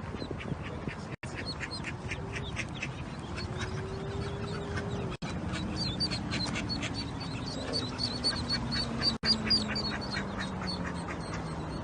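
Animal calls: a rapid run of short, high calls, several a second, over a low tone that slowly falls in pitch. The sound drops out briefly three times.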